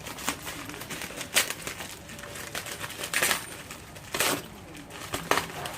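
A package being opened by hand: a run of scattered sharp clicks, taps and rustles of packaging, about five louder ones spread through.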